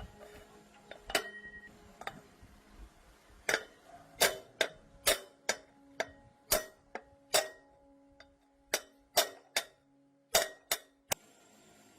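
A series of sharp clicks and clinks, about fifteen or more at irregular spacing, some with a short ring after them. They come thicker and louder after the first few seconds and stop shortly before the end.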